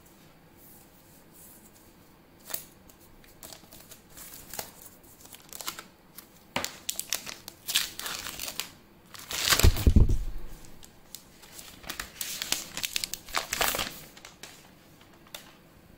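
Packaging being handled and unwrapped: irregular crinkling and tearing, with a louder handling bump a little past the middle.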